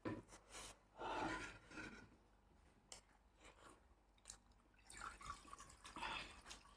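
A person chewing food, in two short spells with faint small clicks between them.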